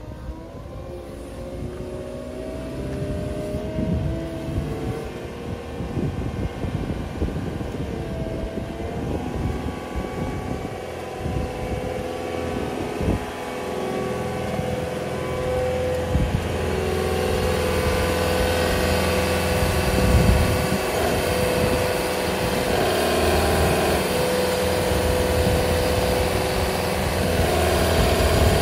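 Caterpillar 906M compact wheel loader's diesel engine running as the machine drives and works its loader arm. The engine pitch rises and falls in the first half, and from a little past halfway it is louder and fuller, holding a steady note.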